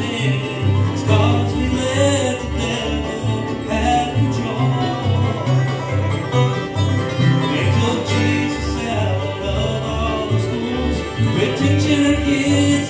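Live bluegrass band playing an instrumental break without vocals. Banjo, fiddle, mandolin and acoustic guitar carry the tune over an upright bass walking steady alternating notes.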